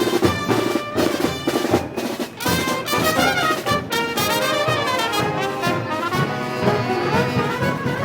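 Festival brass band playing: trumpets and trombones carry the melody over drums. The drum beats are strongest in the first few seconds, after which the brass melody moves up and down.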